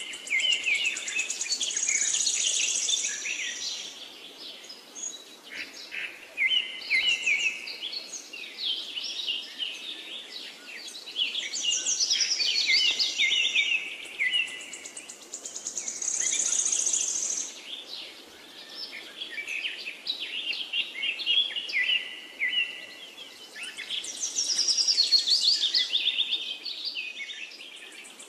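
Small songbirds singing: bouts of rapid, high chirps and trills come every few seconds, over a faint steady background hiss.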